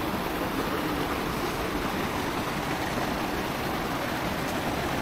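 Small, stony river flowing steadily over pebbles, an even rush of water with no breaks.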